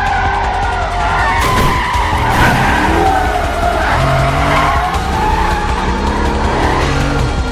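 A Ford Mustang's tyres squealing in a long, wavering screech as the car slides through a turn, with its engine running underneath.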